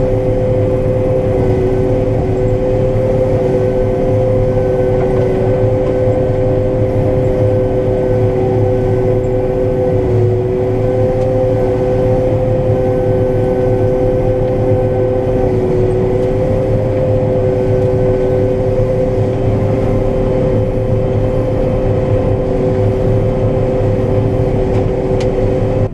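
Combine harvester running steadily while cutting soybeans: a constant engine and machinery rumble with a steady two-pitched whine over it.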